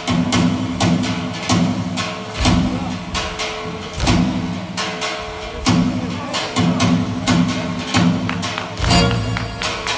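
Folk dance music with plucked strings over a steady heavy beat, a little more than one beat a second.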